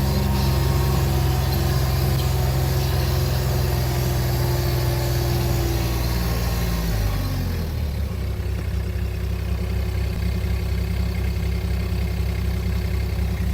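Motor vehicle engine running steadily; about seven seconds in, its pitch steps down as it slows, then it runs on evenly at the lower speed.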